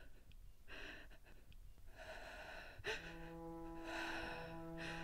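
A woman breathing in short breaths, with a sharp gasp about three seconds in. Right after the gasp a low, held chord of score music comes in underneath.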